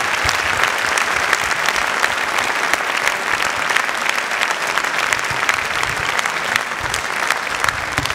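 Large audience applauding, dense and sustained clapping that neither pauses nor swells.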